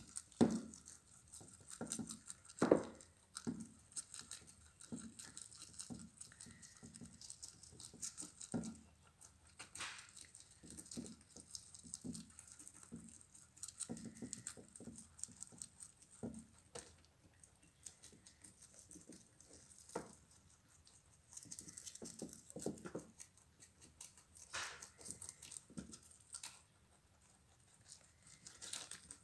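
Rabbits munching Chinese broccoli leaves: quick, irregular crunching and chewing, with the leaves rustling and tearing as they bite and pull at them.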